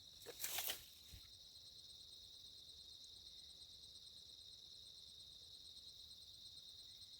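Steady chorus of crickets and other night insects, a continuous high shrill drone. About half a second in there is a brief, louder burst of rustling noise.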